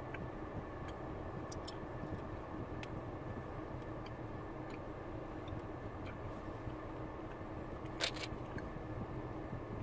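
Steady low background noise of a quiet room, with a few faint ticks and one sharper click about eight seconds in.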